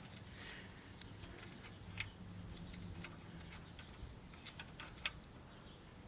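A few faint metallic clicks and light scraping as the oil fill plug on a 1950s Toro Sportlawn mower's engine crankcase is unscrewed by hand.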